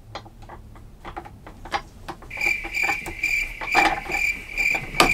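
Light plastic clicks and taps from office-chair parts being handled, then about two seconds in a cricket starts chirping: a high, even run of chirps, about two or three a second.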